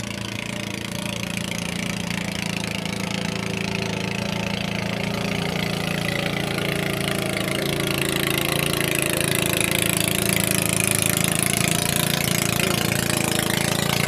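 Small motorboat's engine running steadily, growing louder as the boat comes closer.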